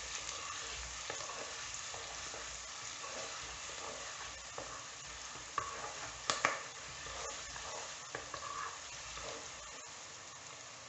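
Chopped garlic frying in hot oil in a clay pot with mustard seeds and curry leaves: a steady sizzle, with a few short clicks of stirring about midway.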